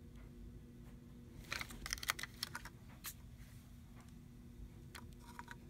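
A quick flurry of small hard clicks and taps from handling, about a second and a half in, then a single click and a few more near the end.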